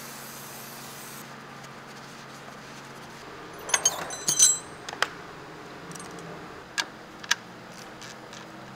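Metal hand tools, sockets and wrenches, clinking and rattling against each other. A quick cluster of ringing clinks comes about four seconds in, followed by a few single sharp clicks, all over a steady low hum.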